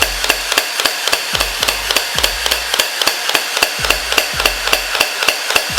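Battery-powered toy gel-ball blaster rifle firing on full auto with no gel balls loaded: its electric motor and gearbox run with a sharp, even clack about four to five times a second. The cycle is slow and the gun is noisy, at the 4.8 V battery's fire rate.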